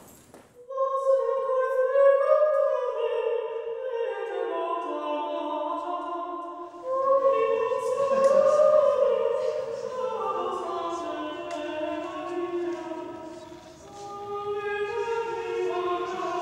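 Soundtrack choral music: several voices singing long held notes in overlapping parts. A new phrase begins after a brief dip about seven seconds in.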